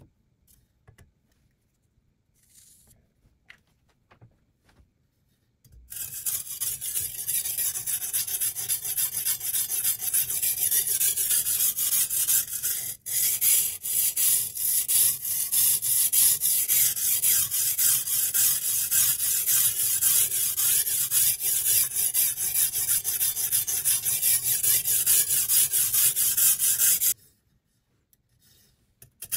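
Sharpening stone on the guide rod of a Sytools Beast guided knife sharpener stroked rapidly back and forth along a steel knife blade: a steady dry scraping of abrasive on steel. It starts about six seconds in after a few faint clicks, breaks off for a moment about halfway, stops near the end and starts again just as it ends.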